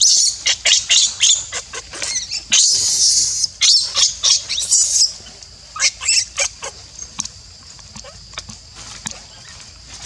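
Baby monkey crying: rapid, high-pitched squeaks and chirps, with two longer shrill screeches about two and a half and four and a half seconds in. The cries thin out to a few scattered squeaks after about seven seconds.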